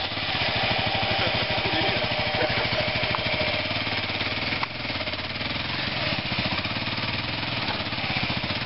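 Dual-sport motorcycle engine running at low revs with a rapid, even pulse as the bike is ridden slowly up out of a rut on a dirt trail.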